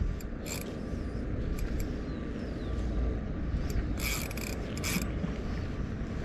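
Spinning reel's mechanism clicking and ratcheting in irregular short bursts while a fish is played, over low wind rumble on the microphone.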